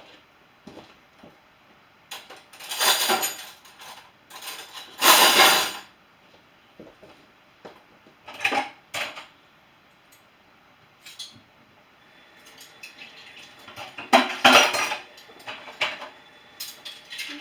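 Dishes and cutlery clattering and clinking as a dishwasher is loaded, in irregular bursts with the loudest clatters about two and five seconds in and another run near the end.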